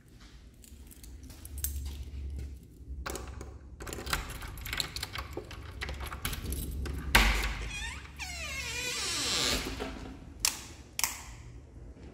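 Keys jangling and clicking in a door lock, then a loud clunk about seven seconds in as the lock turns. The door then swings open with a drawn-out squeak that falls in pitch, and two sharp knocks follow near the end.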